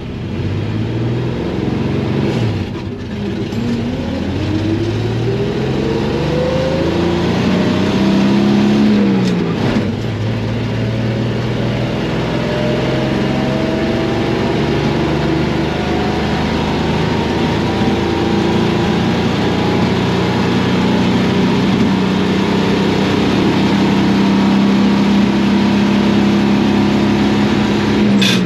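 1963 Chevy C10's 235 straight-six engine at full throttle, heard from inside the cab, accelerating hard from a standstill. It climbs in pitch and drops at two upshifts, about 2.5 and 9.5 seconds in, then pulls slowly upward in top gear until the throttle is let off at the end. The owner thinks the engine has lost its number 3 cylinder.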